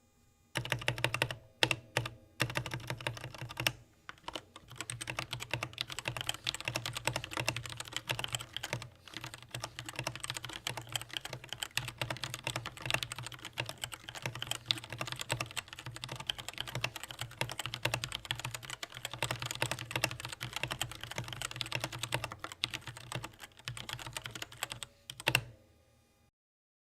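DREVO Gramr V2 TE mechanical keyboard with TTC Black linear switches being typed on quickly: a dense, steady patter of keystrokes with a few short breaks in the first few seconds. It ends with one louder keystroke near the end.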